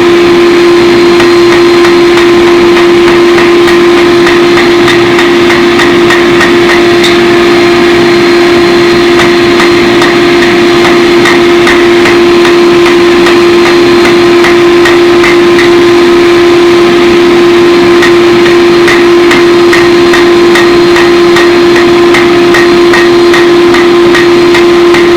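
Steady rhythm of hammer blows on hot 4142 chromoly steel, about three strikes a second, pausing briefly near the middle, over a loud steady hum from shop machinery.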